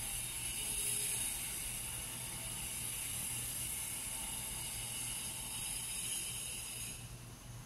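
Steady mechanical whir with a hiss and a low hum. The higher part cuts off abruptly about seven seconds in.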